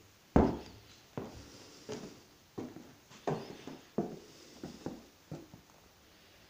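Footsteps on old bare wooden floorboards: a slow, even walk of about eight steps, the first the loudest.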